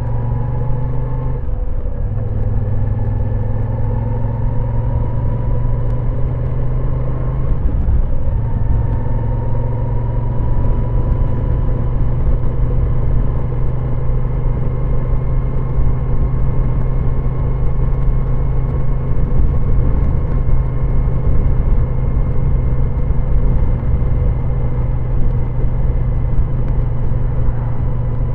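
Moto Guzzi V9 Roamer's air-cooled 853 cc transverse V-twin running steadily under way, heard from the rider's position. The engine note dips briefly about a second and a half in and again near eight seconds, then climbs slowly in pitch.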